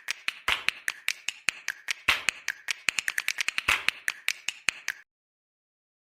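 A rapid run of sharp clicks or taps, several a second and slightly uneven, that stops abruptly about five seconds in.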